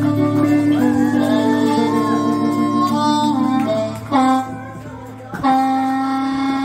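Amplified blues harmonica played cupped against a microphone, bending and holding notes over bass and drums. About four seconds in the band drops away. A long held harmonica note rings out near the end.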